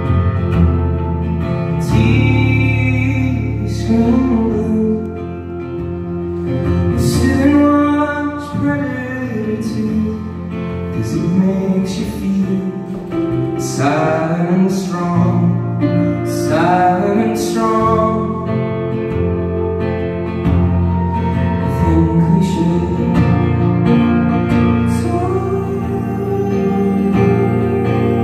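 Live band playing a song: a male lead vocal sung in phrases over strummed acoustic guitar, electric bass, electric guitar and drums, with cymbal crashes.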